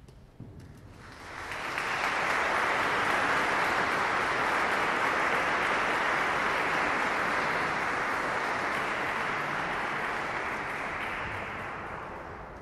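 Audience applauding at the end of a piece of music, swelling in about a second in, holding steady, then fading near the end.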